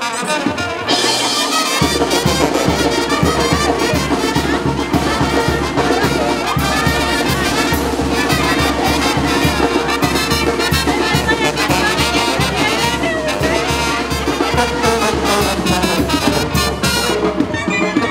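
Brass band music with trumpets and trombones playing. A steady low bass beat comes in about two seconds in.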